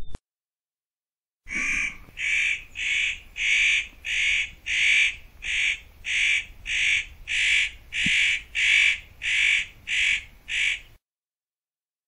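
Spotted nutcracker giving a long series of about sixteen harsh calls, evenly spaced at a little under two a second, starting about a second and a half in and stopping about a second before the end.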